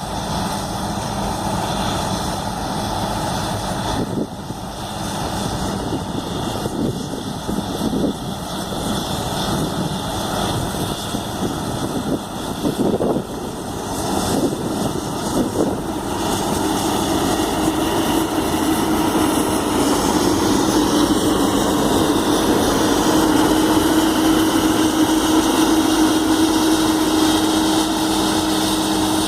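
Massey Ferguson 9790 combine harvester running steadily while harvesting wheat, its engine and threshing machinery giving a continuous drone. About two-thirds of the way through, a hum in the drone rises in pitch and then holds.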